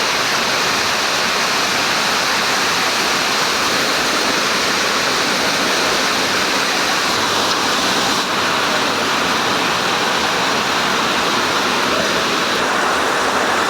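Rain falling steadily, a dense, even rush of noise with no breaks.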